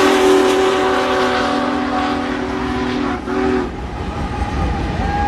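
Union Pacific train passing with its whistle held on a steady chord. The whistle breaks briefly and stops about three and a half seconds in, leaving the steady rumble of the cars on the rails.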